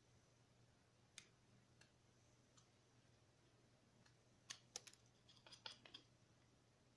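Faint clicks and scrapes of a small carving knife paring wood: a single click about a second in, then a quick run of them from about four and a half to six seconds in, over a faint steady low hum.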